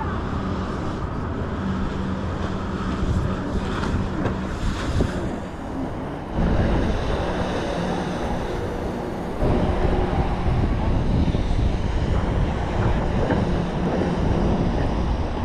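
Wind buffeting the microphone: a dense low rumble that gusts louder about six seconds in and again about halfway through.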